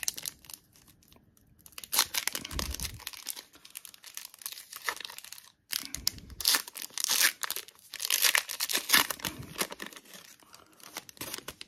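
Trading-card pack wrapper being torn open and crinkled by hand, a stubborn pack that is hard to open, in two spells of tearing and crackling rustle with a brief pause between.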